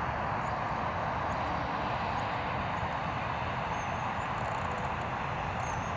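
Steady, even rushing noise of a moving vehicle, with a low rumble underneath and a few faint high chirps.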